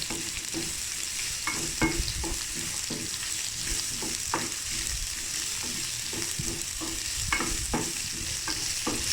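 Bell pepper sizzling as it sautés in oil in a frying pan, with a utensil stirring and knocking against the pan now and then.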